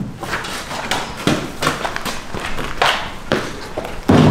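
Irregular knocks and thumps on the plywood bed platform in the truck bed, about a dozen over four seconds, as it is handled and moved on.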